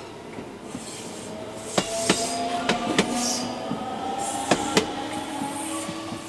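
JR Shikoku suburban electric train rolling past and pulling away: the wheels clack over rail joints in paired knocks as each bogie crosses, over a faint motor whine that slowly rises in pitch as it gathers speed.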